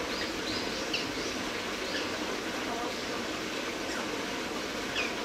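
Small birds giving faint, short chirps that fall in pitch, scattered through a steady outdoor background hum.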